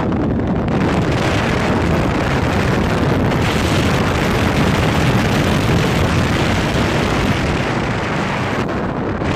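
Loud, steady rush of wind buffeting the microphone of a moving car, mixed with road and tyre noise from driving a dirt road.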